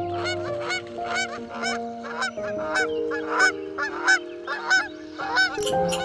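Swans giving a rapid series of short calls, about three a second, over background music of held notes.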